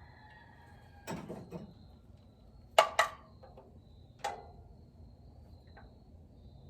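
A few metallic clicks and knocks of hand tools and parts being handled on the engine: a short scuffle, then two sharp clicks a moment apart, then a lighter click.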